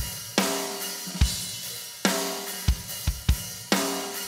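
Drum kit playing a slow rock groove: kick drum and hi-hat with three snare backbeats, each about a second and a half apart. The snare is a Sonor Artist Series cottonwood snare with a coated Controlled Sound head, tuned low, giving a warm attack and quite a lot of ringing tone after each hit.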